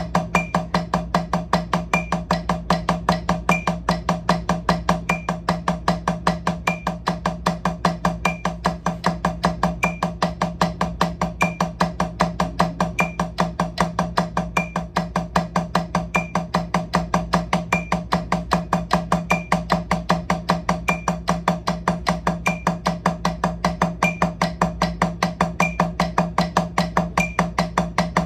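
Drumsticks striking a drum practice pad in a fast, even stream of eighth notes at 152 BPM, hand-to-hand stick-control practice. A higher tick recurs about every second and a half.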